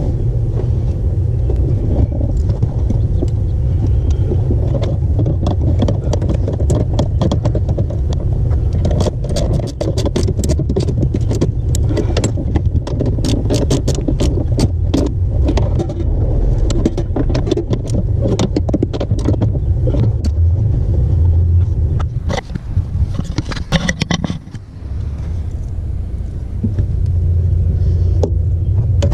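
Hand tools on metal as the clutch master cylinder's two 12mm mounting nuts are run on and tightened: rapid ratchet-wrench clicking and small metallic clatter, densest in the middle stretch, over a steady low rumble.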